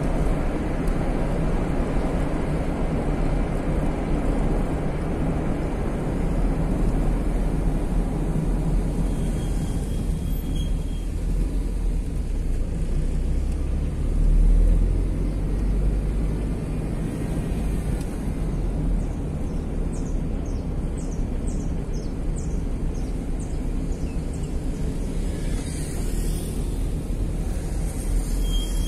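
Steady low rumble of a car on the move, tyre and engine noise heard from inside the cabin, swelling briefly about halfway through.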